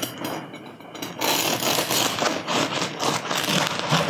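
Knife sawing through the crisp, crackly crust of a freshly baked artisan walnut loaf, a rough scraping of quick back-and-forth strokes that starts about a second in.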